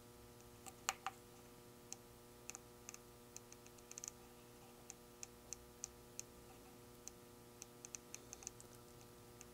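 Faint, sharp clicks at an irregular pace from the small tactile push button on a Mini-DSO pocket oscilloscope kit as it is pressed again and again. A faint steady hum runs underneath.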